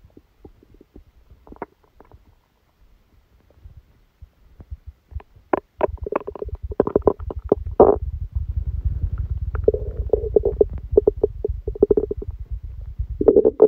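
Human stomach and intestines gurgling during a stomachache after a meal. Only faint clicks at first, then from about five seconds in a long, loud rumble thick with rapid popping gurgles.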